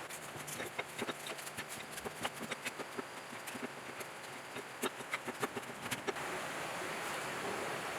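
Irregular light clicks and taps, several a second, for about six seconds, then a steady hiss.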